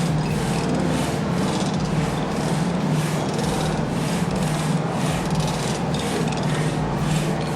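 A saw cutting through timber in a steady rhythm of about two strokes a second, over a continuous low hum.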